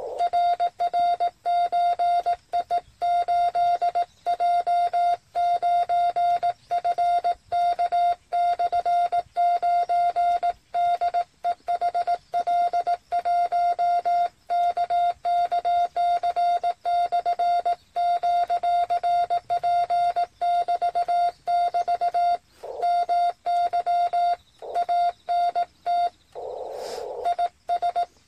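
Morse code sent on a Yaesu FT-817 transceiver, heard as a steady beep tone keyed on and off in dots and dashes: the CW sidetone of the operator transmitting. The receiver's hiss is muted between the characters and comes back briefly near the end.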